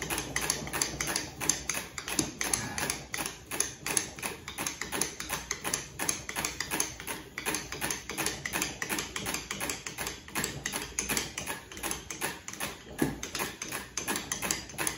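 Hand-cranked Pasco mechanical-equivalent-of-heat apparatus turned fast: a steady, rapid clicking and rubbing of the crank and of the rope dragging around the spinning cylinder, about three to four ticks a second. It is the friction that heats the cylinder.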